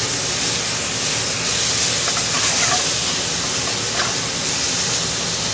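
Thinly sliced beef sizzling in a very hot wok, a steady hiss as it is stirred and fried over high heat.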